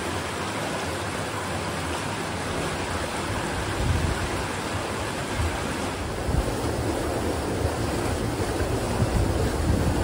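Stream water rushing steadily over a natural rock ledge and through a rock channel. From a few seconds in, gusts of wind hit the microphone in low rumbling surges.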